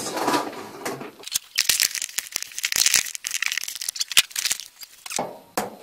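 Close rattling and scraping as the washing machine's plastic water and drain hoses are handled and fed through behind it, for about four seconds starting a second in.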